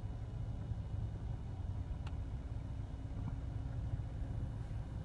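Steady low rumble of a car's engine and tyres heard from inside the cabin while it moves slowly, with one faint click about two seconds in.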